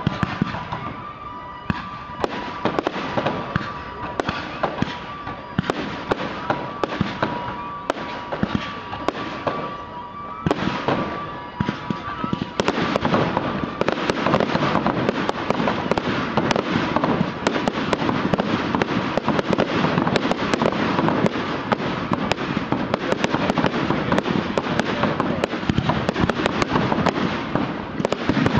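Aerial firework shells bursting one after another in a run of sharp bangs and crackles. About twelve seconds in they thicken into a dense, louder, continuous barrage.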